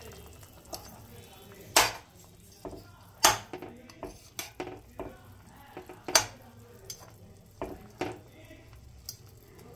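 A metal fork and spatula clinking, knocking and scraping against a pot while pulling boiled chicken meat off the bones, in irregular strokes with several sharp clinks.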